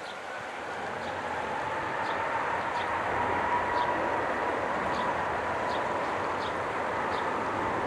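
Twin-engine jet airliner's engines spooling up to takeoff power at the start of the takeoff roll: the jet noise grows louder over the first few seconds and then holds, with a steady high whine running through it.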